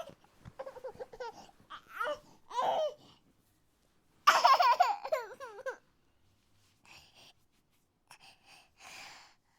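Wordless vocal outbursts from a person, high and wavering, in a string of short bursts. The longest and loudest comes about four seconds in, and fainter ones follow near the end.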